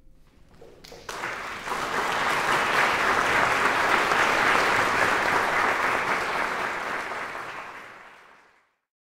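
Concert audience applauding. The clapping starts about a second in, swells, then fades away near the end.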